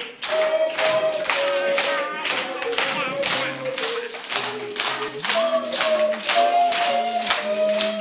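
A tune played on a harmonica in held notes and chords, with children clapping along steadily in time, about three claps a second.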